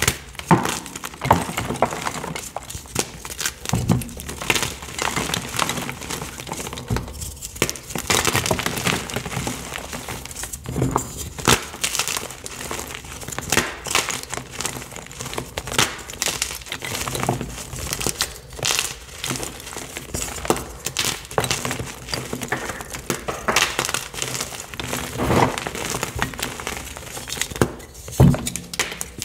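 Blocks of Picsil gym chalk (magnesium carbonate) crushed and crumbled in the hands: dense, irregular crunching with sharp cracks as pieces snap off, and softer crumbling as the powder is squeezed.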